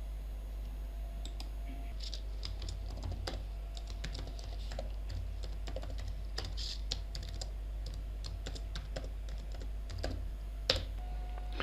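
Computer keyboard typing, quick irregular keystrokes, over a steady low electrical hum.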